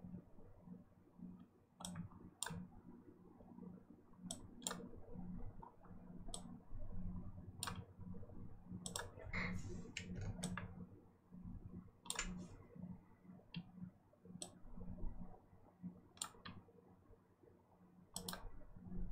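Computer mouse clicking at irregular intervals, some clicks in quick pairs, over a faint steady low hum.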